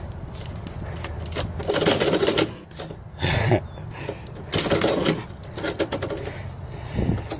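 Envelopes scraping and rustling in a metal door mail slot, with the slot's flap clacking again and again as a cat inside pushes the mail back out.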